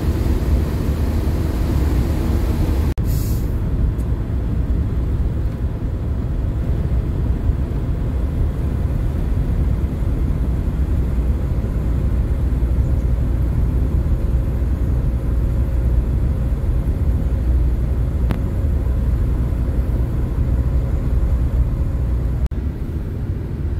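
Camper van driving on a country road, heard from inside the cab: a steady low rumble of engine and tyre noise, with a brief hiss about three seconds in.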